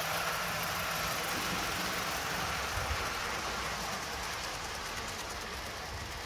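Steady hiss of a Hornby OO gauge live steam locomotive running past with its coaches, over a low rumble of wheels on the track. The sound eases a little toward the end as the train moves away.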